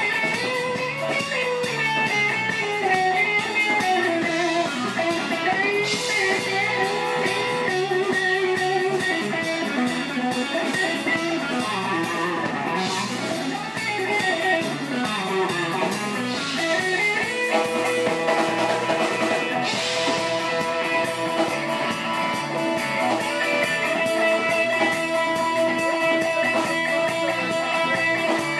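Live blues-rock band: an electric guitar plays a solo line with bent notes over bass and drums, with a cymbal crash every few seconds. From a little past halfway, long held notes come in, which the saxophone is playing by the end.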